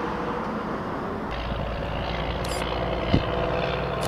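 A steady motor-like drone with a faint hum, a deeper low rumble joining about a second in, and a single click about three seconds in.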